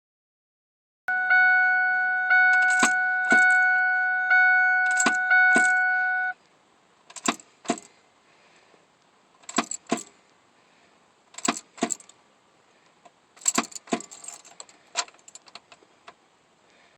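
Ford F-150 warning chime dinging about once a second, then stopping. Alongside it, pairs of sharp clicks and jangling keys as the ignition key is turned again and again. The engine never cranks, the sign of a failed starter.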